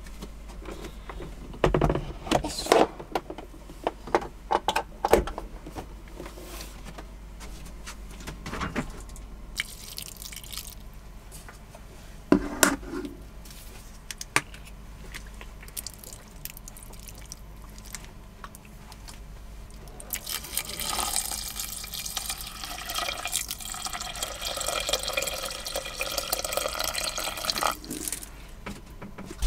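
Liquid poured into a rice cooker's inner pot of rice, running for several seconds near the end. Before it come scattered clicks and knocks of kitchen things being handled.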